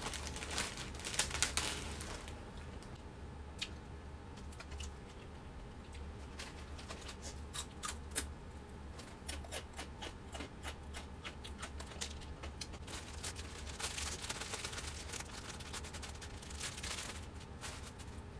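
Plastic bags and food packaging crinkling, with light clicks and taps as vegetables and containers are handled, over a steady low hum. The rustling is heaviest at the start and again near the end.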